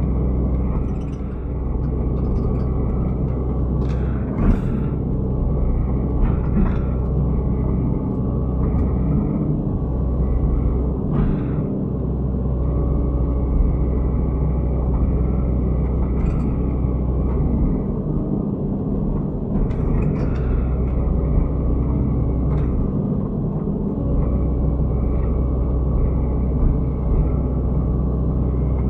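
Excavator's diesel engine running steadily under working load, with a few short knocks scattered through.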